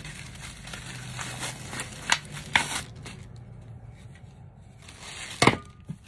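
Plastic packaging crinkling and rustling as plastic-wrapped vacuum attachments are handled and unwrapped, with a few sharp noises, the loudest near the end.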